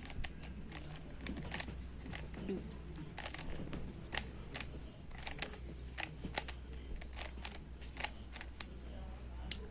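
3x3 Rubik's cube being turned by hand: a run of quick, irregular plastic clicks as its layers are rotated through a solving sequence.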